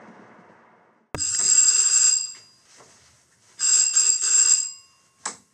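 Electric doorbell ringing twice, each ring about a second long with a rapid metallic rattle, followed by a short click near the end.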